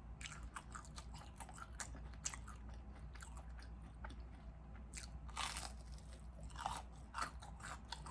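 Close-miked chewing of crispy fried food: a string of sharp, crackly crunches between the teeth, with a few louder crunches about five seconds in and again near seven seconds.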